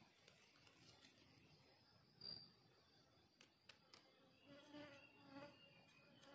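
Near silence: a faint insect buzz in the undergrowth, with a few soft knocks and clicks as a knife scrapes dirt from the base of a wild mushroom.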